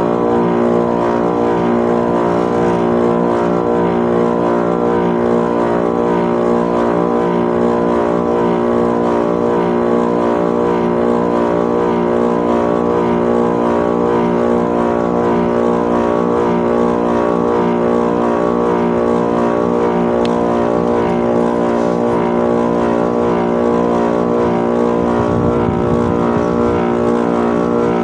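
Air-conditioner outdoor unit running, its compressor and condenser fan giving a loud, steady hum made of several held tones. The compressor is noisy even with a new capacitor, which the technician takes as a sign that the compressor is failing and must be replaced.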